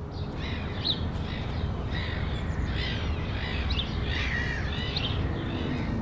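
Birds chirping repeatedly over a steady low rumble of outdoor ambience.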